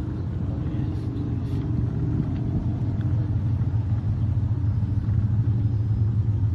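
Outboard motor running hard, a steady low drone that grows slightly louder towards the end.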